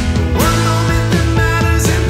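Rock band music with keyboards, guitars and a steady beat, in an instrumental passage between vocal lines.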